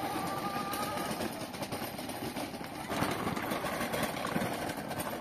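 Plastic wheels of a child's ride-on toy crunching and rattling over gravel as it is pushed along. A high, drawn-out call fades out about a second in.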